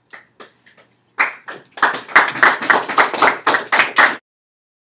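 Hands clapping: a few light taps, then from about a second in a fast, loud run of claps, about five a second, that stops abruptly near the end.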